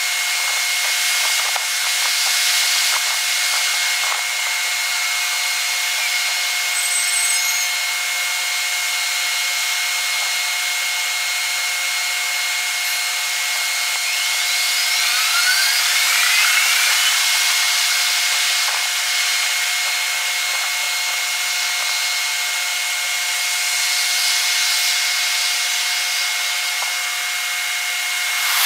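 Steady rasping hiss with a thin high whine throughout and a few short rising whistles about halfway through: the ambient sound of a railway station and street at night, sped up six times in a time-lapse.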